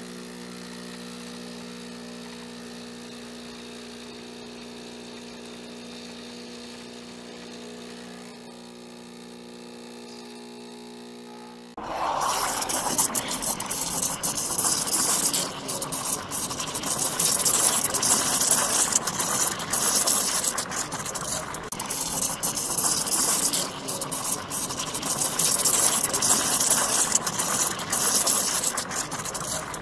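Espresso machine sounds: a steady hum of several even tones for about twelve seconds, then an abrupt switch to a much louder rough hiss full of small crackles and clicks, like a steam wand frothing milk.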